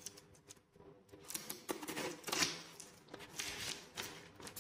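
Box cutter slicing the packing tape and cardboard of a parcel: after about a second of quiet, a quick run of short scraping strokes.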